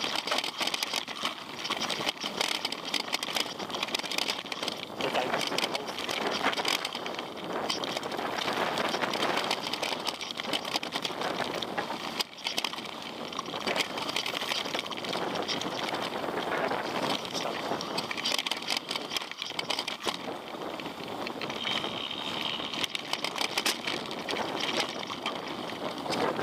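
Mountain bike riding down a rough, stony trail: tyres rolling over rocks and gravel with a constant clatter of small knocks and rattles.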